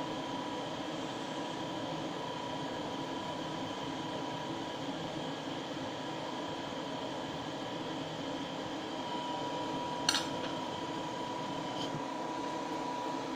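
Butane blowtorch burning with a small jet, a steady hiss, while it reheats a tin-antimony-silver solder ingot. A short sharp click about ten seconds in.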